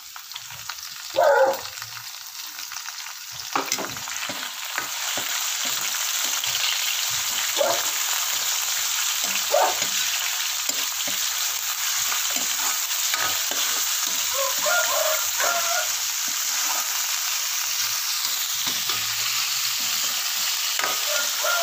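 Diced pork with onion frying in a wok, sizzling steadily and louder from about four seconds in, as a metal spatula stirs and scrapes against the pan; the pork is rendering out its fat. A brief loud clank about a second in.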